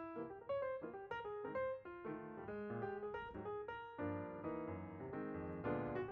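Background music: a piano playing a melody over chords.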